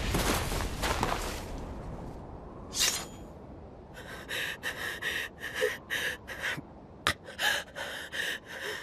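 A young man panting hard and out of breath: one sharp breath near three seconds in, then quick, repeated breaths from about four seconds on. Before that, the tail of a blast dies away over the first two seconds.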